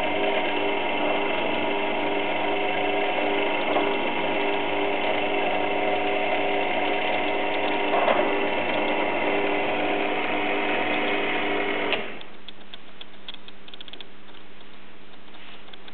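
Benchtop drill press motor running steadily as its bit is fed into a small white piece. The sound cuts off sharply about twelve seconds in, leaving a quieter hum and a scatter of light clicks.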